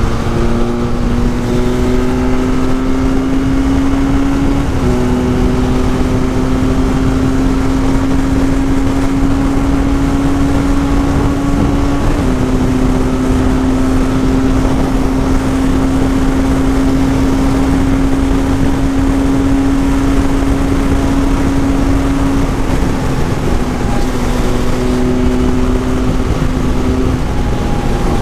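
Benelli 502C's 500cc parallel-twin engine running at a steady highway cruise, its drone holding pitch apart from a few small shifts, under heavy wind rush on the helmet microphone.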